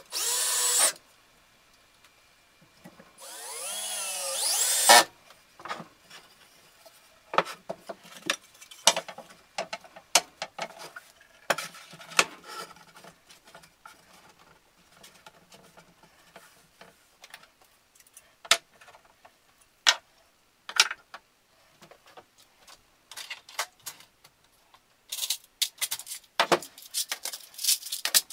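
A power drill runs briefly, with a short burst at the start and then a two-second run whose whine rises in pitch, driving screws into the wooden frame. The rest is scattered knocks and clatter of the 2x4 frame, metal brackets and screws being handled on the bench.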